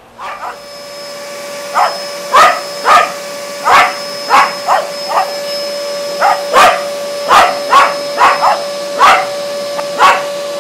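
A Welsh terrier barks sharply and repeatedly, one or two barks a second, over a vacuum cleaner that starts up at the beginning and runs on with a steady whine. The dog is barking because it is upset by the vacuuming.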